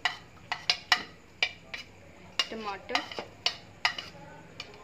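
A spoon scraping and tapping chopped vegetables off a plate into a glass bowl of beaten eggs: a run of sharp, irregular clicks, about two a second.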